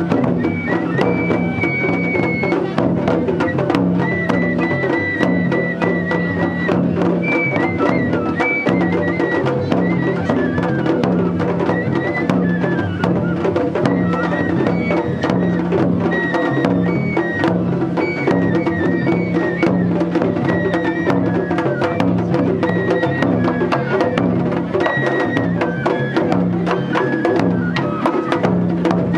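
Japanese festival music (matsuri bayashi): a high bamboo flute playing a melody over continuous drumming and dense, rapid clacking percussion.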